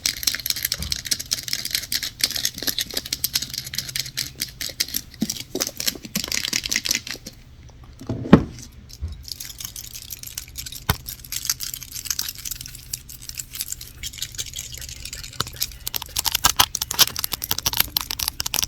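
Fingernails tapping and scratching quickly on hard objects, a dense run of small clicks and scrapes, with a short pause and then one loud knock about eight seconds in.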